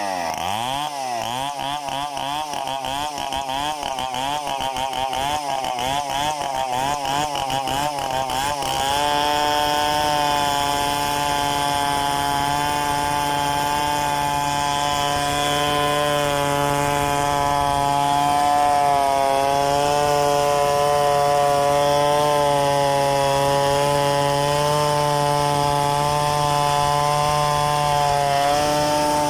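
Stihl two-stroke chainsaw revving up and down rapidly for about the first nine seconds, then held at a steady high pitch with slight wavering and a brief dip, cutting through gmelina wood.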